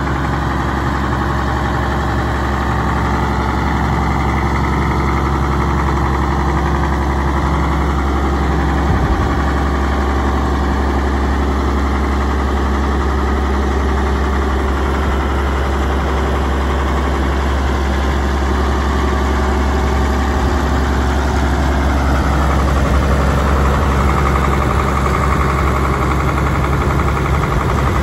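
Case 970 tractor's six-cylinder 401 cubic inch diesel engine idling steadily.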